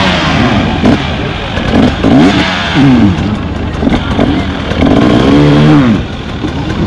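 Enduro dirt bike engine revving in repeated blips, its pitch climbing and dropping several times, with a longer held rev about five seconds in.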